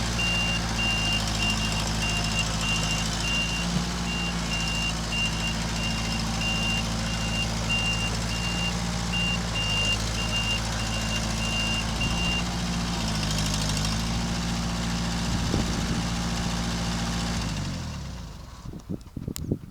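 Kubota L45 loader backhoe's diesel engine running steadily, with its reversing alarm beeping about one and a half times a second for the first twelve seconds or so before it stops. Near the end the engine is shut off and runs down to a stop, followed by a few light knocks.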